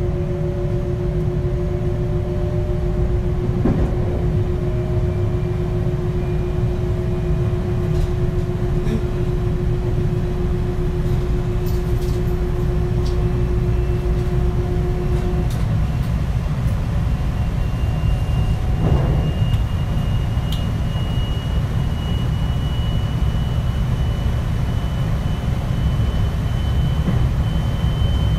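JR West 521 series electric train under way, its Mitsubishi IGBT inverter and traction motors whining over a steady rumble of wheels on rail. The whine rises slowly in pitch as the train gathers speed, and a steady lower inverter tone cuts off about halfway through.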